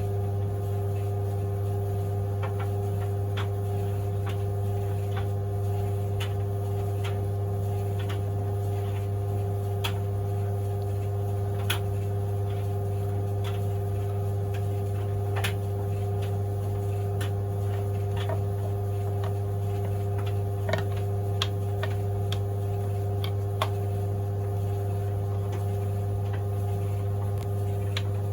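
White Knight CL372 3 kg compact tumble dryer running on high heat: a steady motor and drum hum, with scattered light clicks as the load tumbles in the drum.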